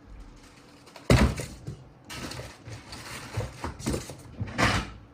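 Handling noises from repair work: a sharp knock about a second in, the loudest sound, then a string of lighter irregular clicks and rustles.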